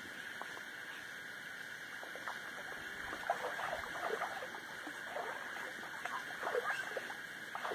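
Small splashes and trickling of river water as a person scoops it with their hands at the shallow edge, in scattered short plops, over a steady high-pitched hum.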